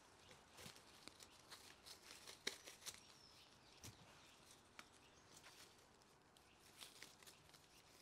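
Faint rustling and crackling of ivy stems and leaves twisted into a ring by hand, in scattered small clicks.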